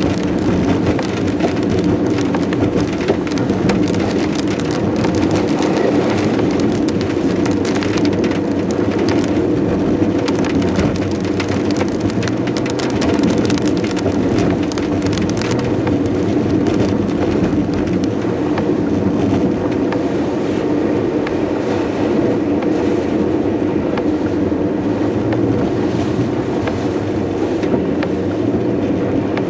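Heavy rain pattering on a car's body and windshield, over the steady drone of the car's engine and tyres on a wet road, heard from inside the cabin.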